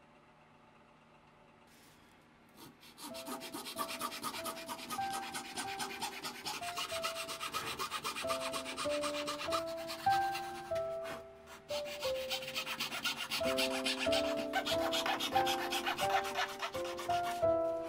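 Near silence, then about three seconds in a hand fret saw starts cutting thin wood in quick back-and-forth rasping strokes. A gentle Christmas instrumental melody plays over the sawing.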